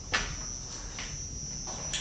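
Footsteps on a hard floor: a few short knocks, the loudest just after the start and fainter ones about a second in and near the end. Crickets trill steadily and high-pitched underneath.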